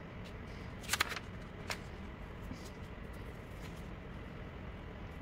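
A sheet of paper handled: a short crackle of rustling about a second in, then a single sharp tick, over a steady low hiss.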